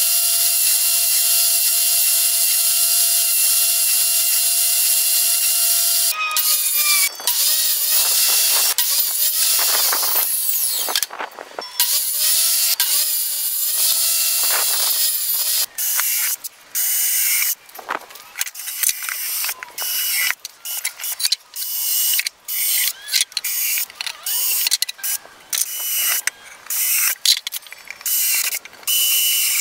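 Benchtop table saw running steadily, then its pitch dipping and recovering again and again as it cuts plywood. From about halfway on, a cordless drill runs in many short stop-start bursts.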